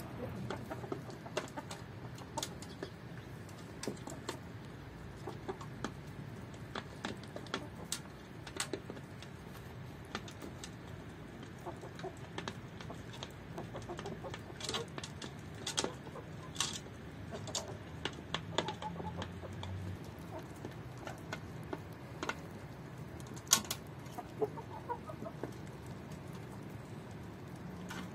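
A flock of chickens clucking, with scattered sharp taps and clicks of beaks pecking feed from a metal pan; one tap about two-thirds of the way through is the loudest.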